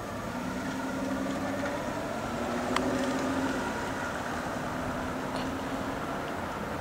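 An engine running steadily with a low hum over outdoor town background noise, with a single sharp click nearly three seconds in.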